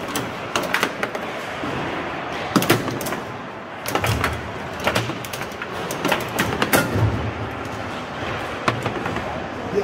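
Foosball play: sharp, irregular clacks of the ball being struck and stopped by the table's figures, with the rods knocking, over a steady background hum of the hall.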